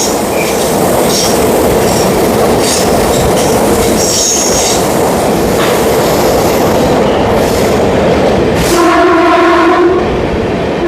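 A train running with a loud, steady rushing rumble, and its multi-tone horn sounding for about a second near the end.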